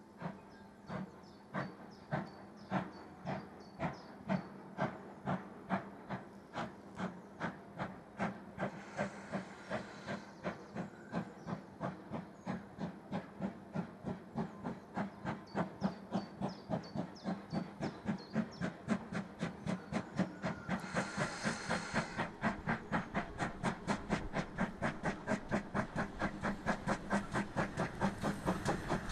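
GWR 4500 class 'Small Prairie' tank locomotive no. 4566 pulling away with a train, chuffing. Its exhaust beats quicken from about one a second to three or four a second and grow louder as it gathers speed and comes closer. There is a short burst of hiss about two-thirds of the way through.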